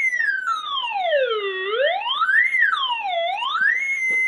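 Homemade oscillator noisemaker built into an old computer speaker, putting out a single electronic tone that is swept by hand with the oscillator's knob: it slides down to a low pitch, back up, down partway and up again, then holds a steady high pitch near the end.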